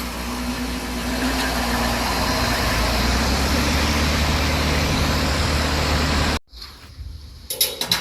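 HVAC unit running: a steady low hum under a loud rush of fan air, cutting off suddenly about six and a half seconds in, with a few sharp clicks near the end.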